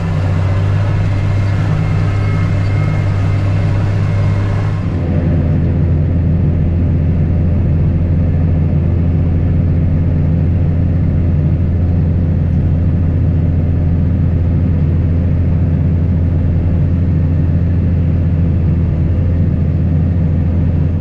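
Steady low drone of a vehicle's engine and running gear while driving along. The tone shifts slightly once, about five seconds in.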